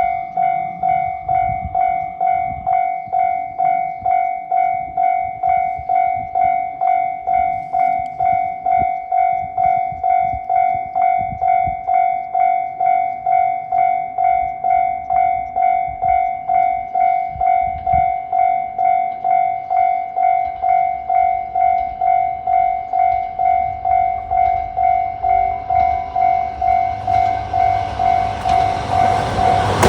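Japanese level-crossing warning bell ringing steadily, about two strikes a second. Near the end the rumble of an approaching train, a JR Kyushu KiHa 125 diesel railcar, builds up under the bell.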